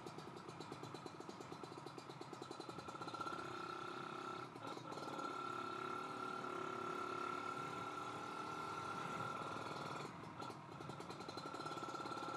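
Kawasaki Ninja RR 150cc two-stroke motorcycle engine running under way through its standard exhaust, a steady fast run of firing pulses that dips briefly twice.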